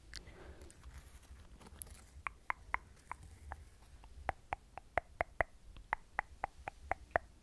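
A quick run of soft, sharp clicks, about three or four a second, beginning about two seconds in.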